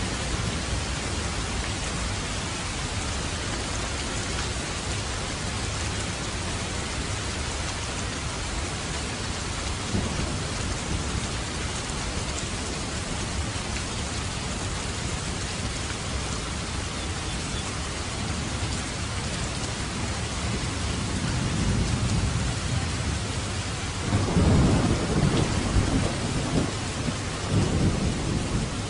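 Steady rain falling, with a rumble of thunder building past the two-thirds mark and loudest near the end.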